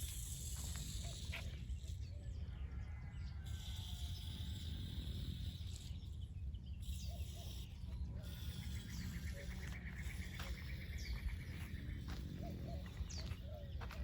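Outdoor ambience: birds chirping, with a fast pulsing trill that comes and goes, over a steady low rumble.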